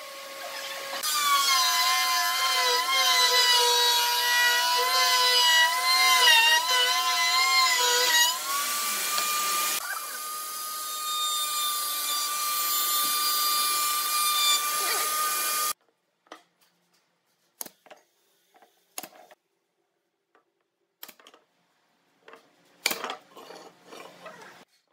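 Bench-mounted table saw cutting a wooden board: a high motor whine whose pitch sags and wavers under the load of the cut, then rises and holds steady as the blade runs free. The whine stops suddenly, and a few light knocks of boards being handled follow.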